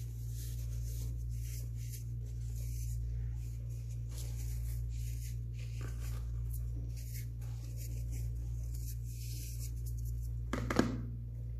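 Hands squeezing and crumbling chunks of blue-dyed baking soda, a run of soft, gritty crunches and crackles, with one louder crunch near the end.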